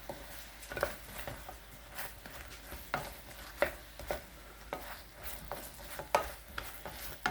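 Chicken wings being stirred in a pan of thick, syrupy chili sauce, the utensil making irregular clicks and scrapes against the pan about once or twice a second.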